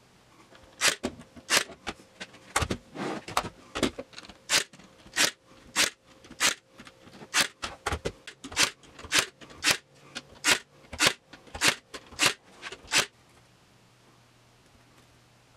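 Cordless brad nailer firing into a plywood box, about twenty sharp shots at roughly half-second to one-second intervals, stopping abruptly near the end.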